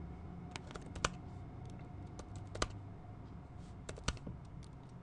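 Typing on a computer keyboard: irregular key clicks, with three louder key strikes about a second and a half apart.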